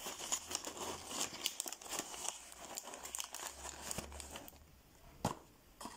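White tissue paper packing crinkling and rustling as a hand rummages inside a cardboard box, stopping after about four and a half seconds; one sharp tap follows a little after five seconds.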